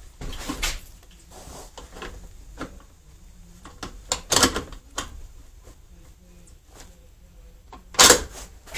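Two loud, sharp bangs about four seconds apart, with fainter clicks and knocks between them.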